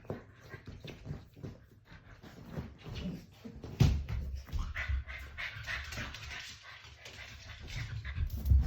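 A Chow Chow puppy making small dog noises amid irregular clicks and knocks, with heavier thumps about four seconds in and again near the end.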